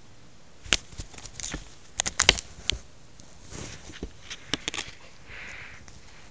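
Stiff plastic shirt-collar packaging being batted and bitten by a kitten: scattered sharp clicks and crinkles, with a quick cluster of them about two seconds in.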